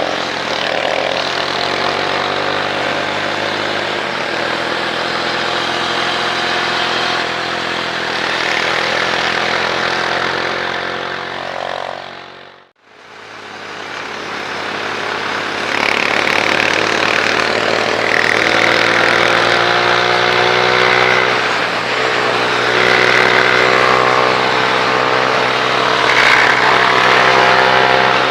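Motorcycle engine running on the road under wind noise, its pitch climbing as the revs rise through the gears in the second half. About halfway through, the sound fades away almost to silence and comes back.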